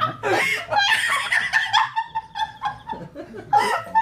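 Several people laughing and snickering, in short bursts of voice.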